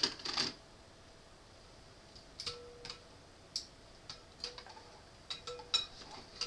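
Makeup items being handled on a dresser top: irregular light clicks and taps, a few at the start and several in quick succession near the end.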